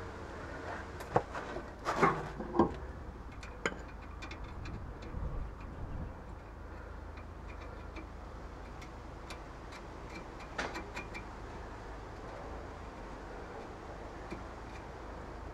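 Light metallic clicks and knocks of hand tools and fastener hardware while a front sway bar end link is fitted to the strut, with a few louder knocks in the first few seconds and another cluster about two-thirds through. Faint scattered ticking in between, over a low steady hum.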